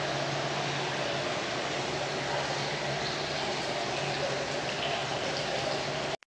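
Steady rush of hot-spring water flowing into a large indoor bath, with a faint low hum under it. The sound cuts out for a moment near the end.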